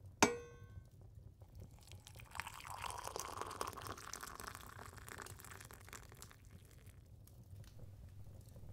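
A cup clinks once with a brief ring, then hot water is poured from a kettle into the cup for a few seconds.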